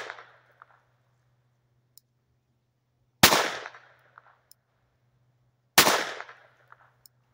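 Ruger SR22 .22 LR semi-auto pistol firing two shots about two and a half seconds apart, each with a short echoing tail, after the fading tail of a shot just before. The pistol is being fired single action.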